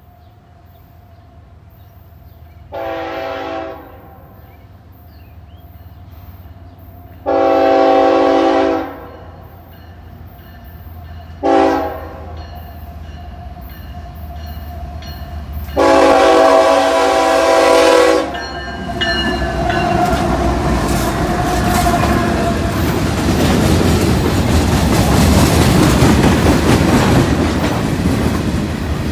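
Diesel freight locomotive's multi-tone air horn sounding the grade-crossing signal: two long blasts, a short one and a final long one, each louder as the train nears. Then the locomotives and freight cars roll past with a steady rumble and the clickety-clack of wheels over rail joints.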